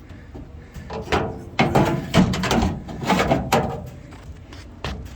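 Irregular knocks and rattling from the inside of a 1978 Scottsdale pickup's opened door as a hand works around the lock linkage and clips in the door shell, in several short clusters.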